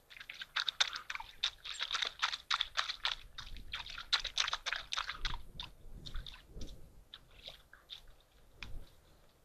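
African wild dogs moving and feeding right by the microphone: a quick, irregular run of crunching clicks, thickest for the first five seconds and thinning out after.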